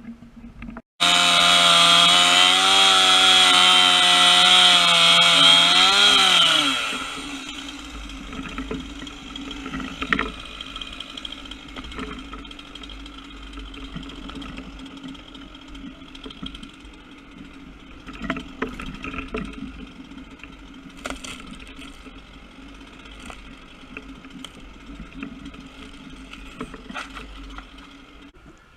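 Gas-powered saw held at full throttle for about five seconds, then let off so its pitch falls away. A quieter steady engine hum with scattered knocks follows.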